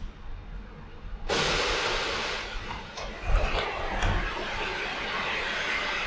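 Powered luggage-locker door on a Higer Pegasus 12-metre coach opening: a sudden steady hiss starts about a second in and carries on as the door lifts, with a couple of low knocks partway through.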